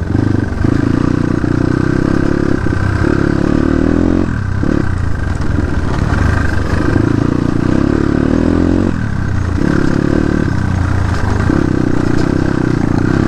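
Dirt bike engine running as the bike is ridden, its note dropping briefly a few times as the throttle is eased off and then opened again.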